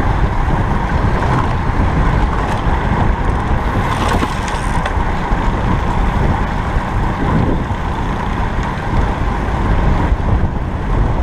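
Wind rushing over the microphone of a camera riding along on a road bike at racing speed: a steady, loud buffeting noise with no break.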